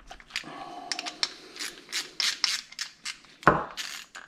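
Blue paper shop towel crinkling and rubbing as gloved hands wipe residual brake fluid off a motorcycle front brake master cylinder, in quick irregular strokes. A dull knock about three and a half seconds in.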